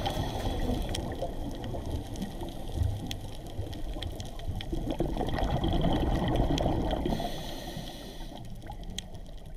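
Underwater bubbling and gurgling over a low rumble, with scattered sharp clicks, fading toward the end.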